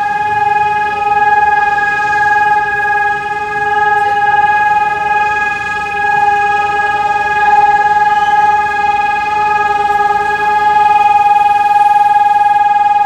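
Mining company's warning siren sounding during a siren test: one loud, steady tone held at a constant pitch, its level wavering slightly.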